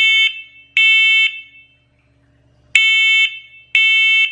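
First Alert 10-year smoke and carbon monoxide alarm sounding its test alarm: loud, high-pitched beeps of about half a second each in the three-beep pattern that signals smoke. Two beeps, a pause of about a second and a half, then two more beeps.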